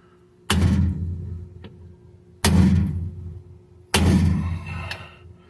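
Three hammer blows on a steel punch against a new bearing race that has gone in crooked in the differential housing, each strike ringing on and dying away over about a second.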